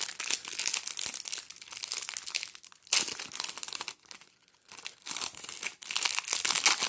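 Clear plastic wrapper of a trading-card hanger pack crinkling and tearing as it is peeled off the stack of cards, with a brief pause about four seconds in.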